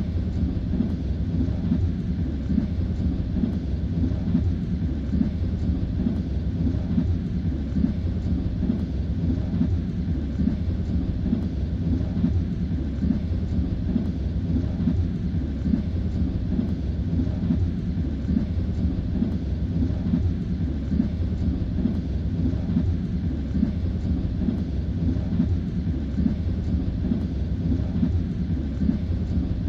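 Railway carriage wheels clattering over the rail joints over the steady low rumble of a moving train.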